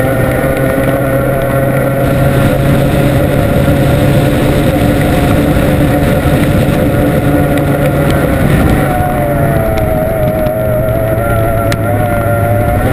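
Formula 1 tunnel race boat's two-stroke V6 outboard running flat out, heard on board over a heavy rush of wind and water. Its pitch shifts about eight and a half seconds in and then wavers.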